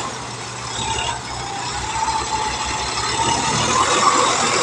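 Sonalika DI-745 III tractor's diesel engine running as it pulls a loaded trailer, getting louder over the last couple of seconds.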